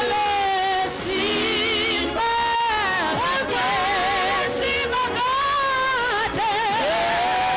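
Church worship music: voices singing a slow melody with wavering held notes.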